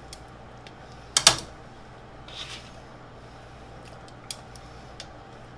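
Metal kitchen tongs clacking against a stockpot and against each other as salmon steaks are set into simmering broth. Two sharp clicks come about a second in, then a softer sound and a few light ticks.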